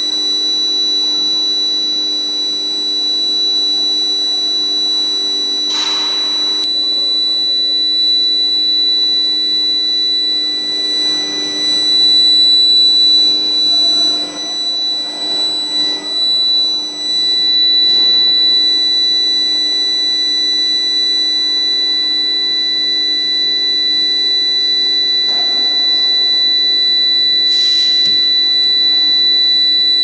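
Induction hardening and quenching line for knife plates running. It gives a steady high-pitched whine from the induction coils and power supply, over a lower steady hum. Two short hissing bursts come about six seconds in and near the end.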